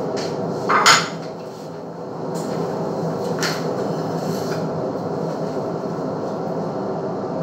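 A steady mechanical hum, with a sharp clatter of dishes about a second in and a fainter clatter about three and a half seconds in.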